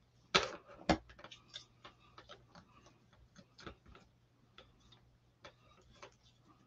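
Stir stick clicking and scraping against a small mixing dish as ink is stirred: irregular light ticks, with two louder knocks within the first second.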